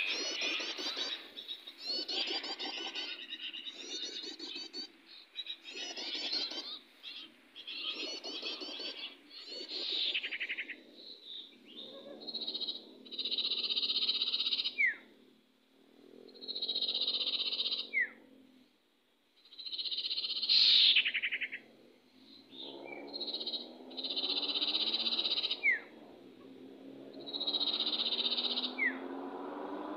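Small birds calling in repeated bursts of a second or two with short gaps between them, now and then with a short falling note.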